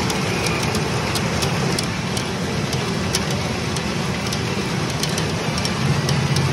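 Steady din of a pachinko parlor: a dense rattle of steel pachinko balls with many sharp clicks. A low hum grows stronger near the end.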